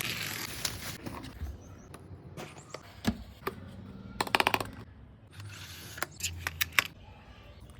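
Scattered sharp clicks and taps, with a quick run of about eight clicks about four seconds in and another cluster of clicks around six to seven seconds.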